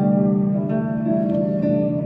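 Background music: plucked string notes over sustained low tones.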